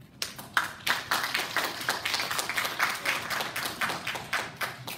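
Audience applauding, a patter of separate hand claps that starts a moment in and dies away near the end.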